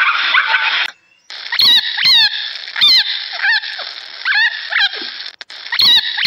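Young rabbits squeaking: a run of short, high squeaky calls, each sliding down in pitch, coming every half second to a second. Before them, for about the first second, a dense chirping texture runs and then cuts off abruptly.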